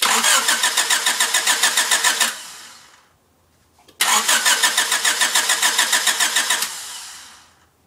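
Car engine cranked by its starter twice, each time a couple of seconds of rhythmic churning that winds down without the engine catching: it cranks but won't start.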